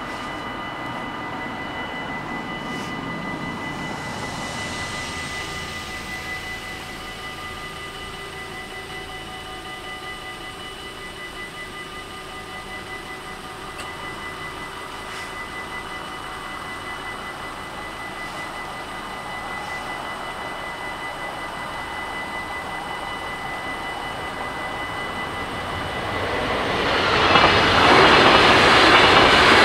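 Railway level-crossing warning bells ringing steadily. About 26 seconds in, an NS DDZ double-deck electric train arrives at the crossing, and its rising wheel and track noise drowns out the bells.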